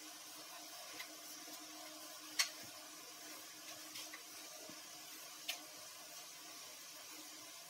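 Wooden rolling pin rolling dough puris on a rolling board, heard as a few light, sharp clicks and taps, the loudest about two and a half seconds in, over a faint steady hiss.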